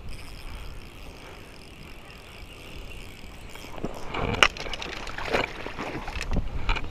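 A trout being played and landed on a spinning rod: the first few seconds are quiet, then from about four seconds in come a run of sharp knocks and rustling bursts from handling the rod, reel and landing net at the water's edge, with water splashing.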